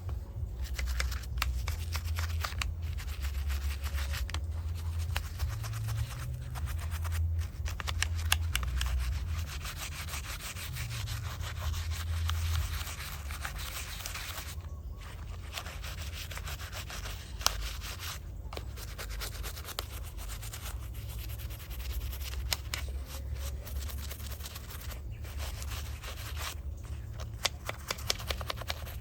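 Steady scrubbing and rubbing on a small die-cast model car, a scratchy sound with many small clicks and a low handling rumble.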